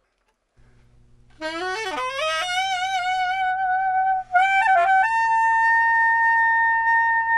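A small curved saxophone played slowly, one melody line: about a second and a half in, a low note slides up into a held note, a few quick notes follow about four and a half seconds in, then one long held note.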